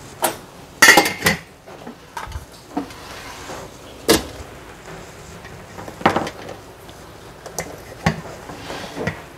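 Kitchen clatter: a string of separate knocks and clinks of dishes, pots and utensils being handled, the loudest a quick cluster about a second in.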